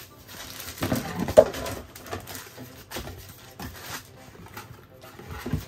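Cardboard box and plastic bag rustling and scraping as a flexible steel 3D-printer build plate is handled and packed back into its flat box, with a sharp knock about a second and a half in and another near the end.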